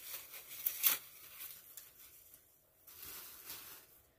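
Plastic being torn and crinkled by hand, with a sharp tear a little under a second in. Near the end comes a longer rustle of a plastic takeout bag.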